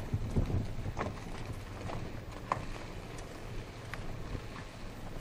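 Low rumble of a car driving, heard from inside the car, with wind buffeting the microphone. A few light clicks come through about a second in, twice around the two-to-three-second mark, and once near four seconds.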